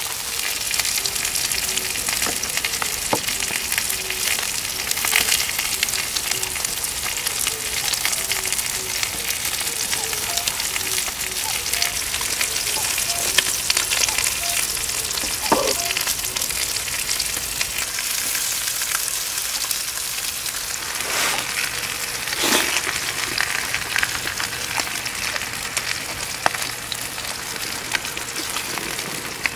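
Steak sizzling and frying on a hot gas griddle, a steady crackling hiss, with a few light clicks and knocks.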